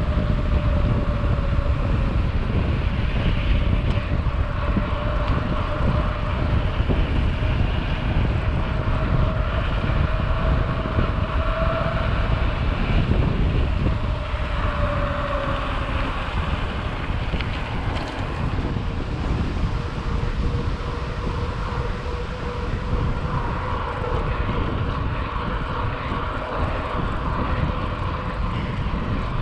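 Wind rushing over the microphone as a mountain bike rolls fast downhill on asphalt. A faint, thin whine holds steady and drops slightly in pitch about halfway through.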